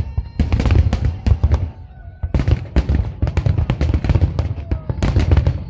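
Fireworks salute: aerial shells bursting in rapid volleys of bangs and crackles. There is a short lull about two seconds in, then a dense run of bangs.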